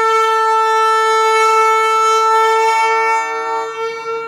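A boat's horn sounding one long blast of about four seconds, a steady two-note sound; the weaker note drops out shortly before the end.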